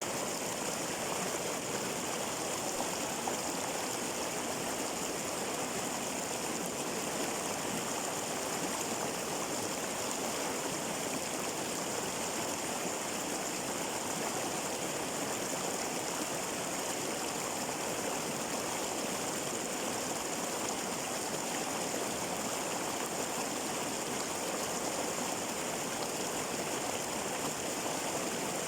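Flowing water: a steady, even noise that stays the same throughout, with no separate splashes or other events.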